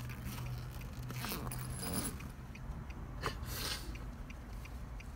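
Rustling and scraping of a mesh fabric pet carrier being handled, in a few short strokes over a steady low hum.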